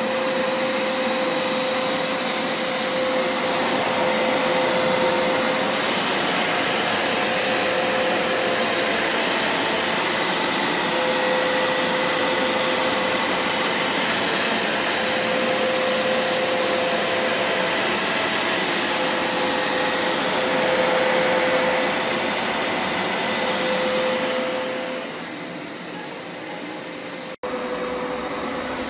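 Hoover Power Scrub Deluxe FH50150 carpet washer running as it is pushed over carpet: a steady motor rush with a thin whine on top. Near the end it gets quieter, cuts out for an instant, and comes back.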